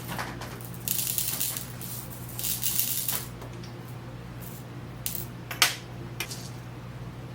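Small beads rattling and clicking in a dish: two short rattles, then a few sharp separate clicks.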